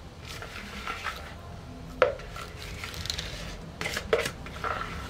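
Spatula scraping thick cake batter out of a plastic mixing bowl into an aluminium tube pan, with a sharp knock about two seconds in and a few more knocks around four seconds in.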